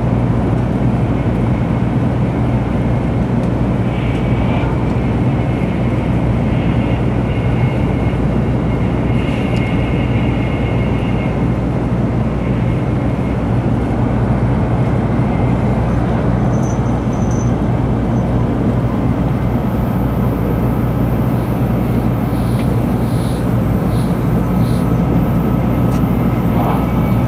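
Shinkansen bullet train running at speed, heard from inside the passenger car: a steady rush of running noise over a constant low hum.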